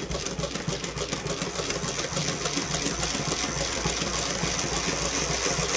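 Vintage Cornely L chainstitch embroidery machine running steadily, its needle mechanism clattering in a rapid, even rhythm as it couches thick fuzzy yarn in a three-thread chainstitch.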